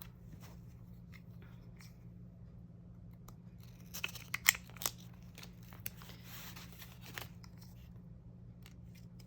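Mail packaging being worked open by hand: a few sharp clicks around four to five seconds in and a soft rustle a little later, over a faint steady hum. The packing is wrapped tightly enough that it is hard to get off.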